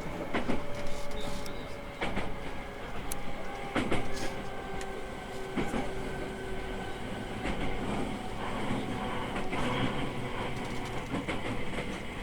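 Running sound heard inside an E217 series electric train car: a steady rumble of wheels on rail, broken every second or two by the clack of the wheels crossing rail joints, with faint steady whines over it.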